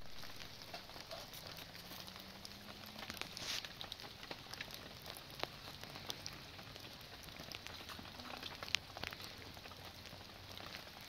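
Steady rain pattering, with scattered sharp ticks and crackles throughout and one louder crack near the end.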